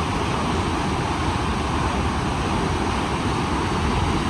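Steady rushing of a powerful waterfall at close range, with wind rumbling on the microphone.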